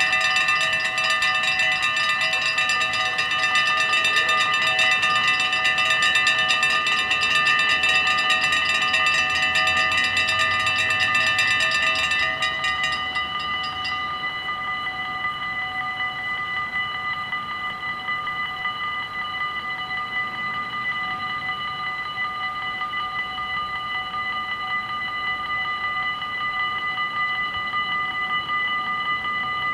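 Several electric bells of a Dutch AHOB half-barrier level crossing ringing together while the barriers lower. About thirteen seconds in, once the barriers are down, the sound thins and a quieter ringing carries on.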